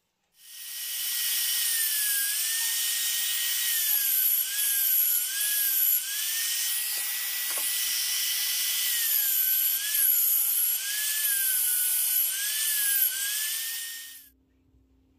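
Hand-held trim router spinning up and running at high speed while milling an aluminium crankcase. Its high whine dips in pitch again and again as the bit loads up in the cut, then recovers, and it shuts off near the end.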